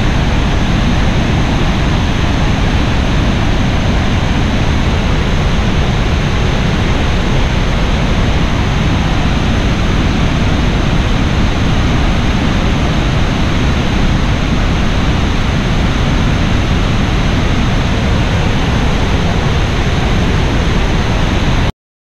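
Large waterfall rushing with a loud, steady noise, heaviest in the low end. It cuts off abruptly near the end.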